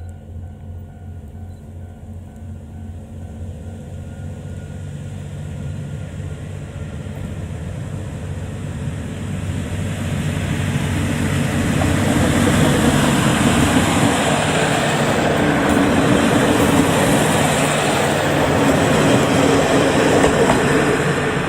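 KiHa 40 series diesel railcar approaching and passing a level crossing, its engine and wheel noise growing steadily louder over about ten seconds and staying loud through the second half. A pulsing level-crossing warning bell rings in the first few seconds and is drowned out as the train comes up.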